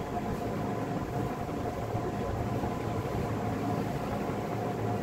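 Steady low rumble of background machinery or traffic with a faint steady whine.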